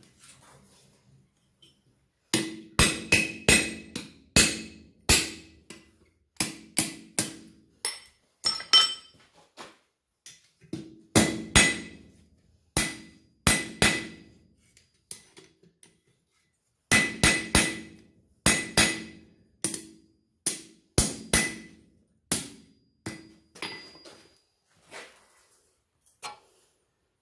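Blacksmith's hammer striking steel on an anvil in runs of several quick blows, each leaving a bright metallic ring, with short pauses between runs.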